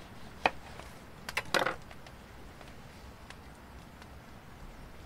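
A sharp tap and then a short clatter of knocks on a wooden table, from a knife and cut lemon halves being handled and set down.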